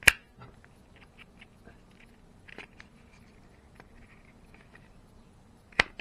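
Plastic drain filter insert from a Miele washing machine being worked apart by hand. There is a sharp plastic click right at the start and another shortly before the end as its side tabs let go, with light handling ticks in between.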